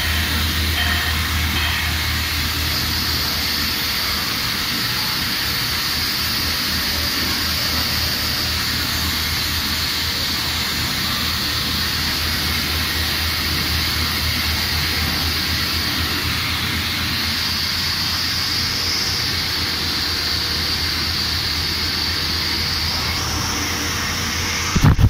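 A CNC machine runs steadily through a finishing cut on a roll, a low hum under an even hiss. Near the end a few sudden loud knocks break in.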